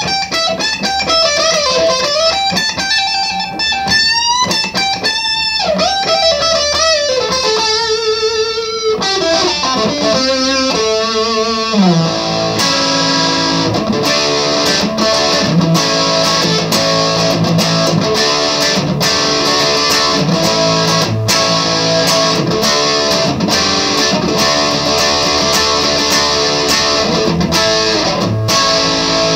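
Gibson 1959 reissue Les Paul electric guitar, amplified, playing a single-note lead line with string bends and vibrato. About twelve seconds in, a note bends down and the playing turns into a denser, fuller passage of quickly picked notes and chords.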